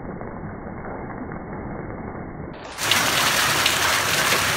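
Hail falling on a garden: a dense patter of hailstones hitting the ground and objects. It is muffled at first, then about three seconds in becomes suddenly louder and brighter.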